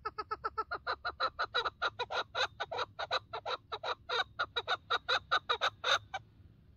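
Chukar partridge giving its rapid chuk-chuk rally call, about five notes a second for some six seconds, growing louder and then stopping abruptly.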